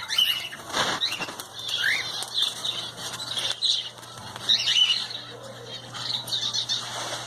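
A colony of small pet birds chirping and twittering all together, with bursts of wing fluttering.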